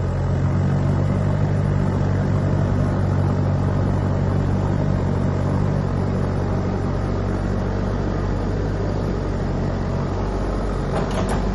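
JCB 3DX backhoe loader's diesel engine running steadily under load, a deep even drone, with a couple of short knocks near the end.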